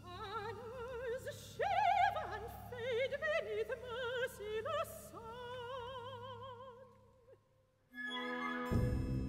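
Operatic soprano soloist singing a slow, moving line with wide vibrato over a faint low held chord. Her voice dies away about seven seconds in, and the orchestra comes in strictly in time near the end.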